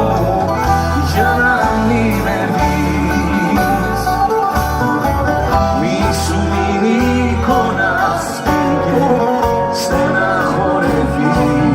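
Live band playing an instrumental break in a Greek pop ballad: a plucked-string lead melody over a steady bass line, with no vocal line.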